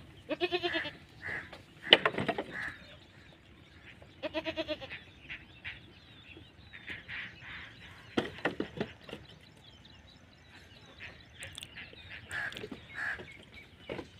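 Goat bleating twice, a quavering call near the start and another about four seconds in, with scattered short knocks and clatter between the calls.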